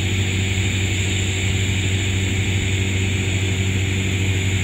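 TIG welding arc burning steadily on a stainless steel pipe joint: an even low hum with a steady hiss above it.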